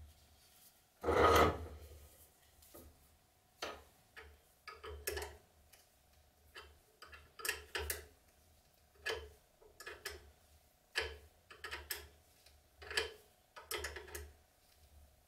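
Small socket ratchet clicking in short bursts as it turns the nut on the butt of a machete handle, about one burst a second, with a louder clatter about a second in.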